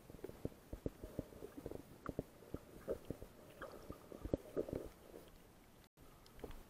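Muffled, irregular knocks and clicks of underwater noise picked up through an action camera's waterproof housing, with the sound cutting out for an instant near the end.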